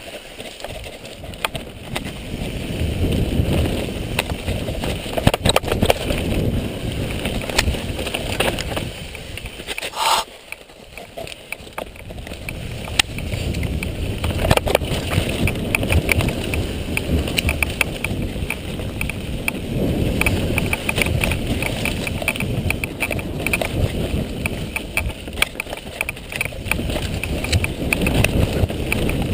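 Mountain bike ridden fast down a dirt singletrack: tyres rumbling over the dirt, the bike rattling and clattering over bumps and roots, and wind buffeting the microphone. The noise eases briefly about ten seconds in, then builds again.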